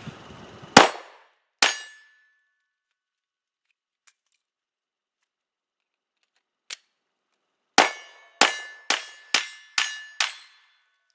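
Two 9mm shots from a Glock 19 pistol, a pause for a magazine change with a single sharper click, then a string of six fast shots about half a second apart. Several shots are followed by a brief metallic ring.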